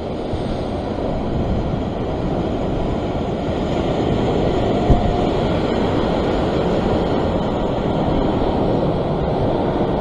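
Ocean surf and swell washing over the rocks, a steady rushing noise that builds slightly, with wind on the microphone. One brief knock about halfway through.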